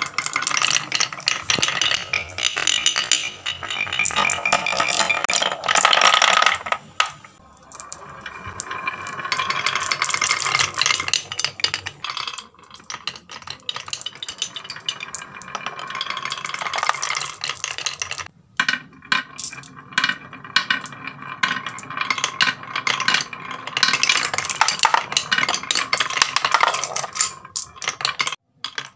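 Marbles rolling along carved wooden tracks, a dense, fast clatter of clicks as they knock against the wood and against each other. There are a few brief lulls.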